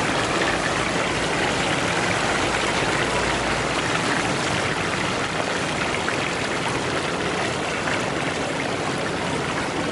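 Fish pieces deep-frying in a large wok of hot oil: a steady, even sizzle of bubbling oil.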